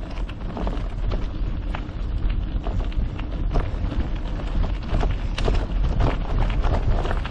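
Mountain bike rolling along a gravel trail: tyres crunching and the bike rattling in a dense stream of irregular small clicks, over a constant low rumble of wind and vibration on the microphone.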